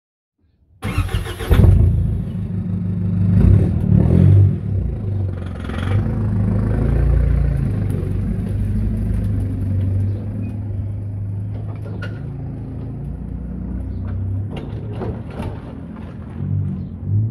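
A ute's engine starts about a second in, revs briefly, then runs steadily and slowly fades as it pulls away towing a boat trailer, with a few light clicks and rattles late on.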